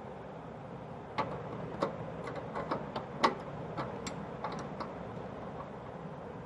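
Small metal clicks and taps of a spanner on a gas stove burner jet as it is screwed back in and tightened. The ticks are irregular, start about a second in, and the loudest comes about three seconds in.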